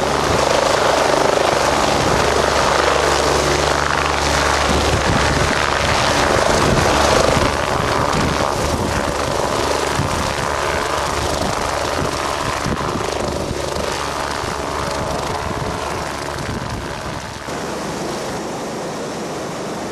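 Helicopter's rotor and turbine engine running, a steady low drone that grows gradually fainter.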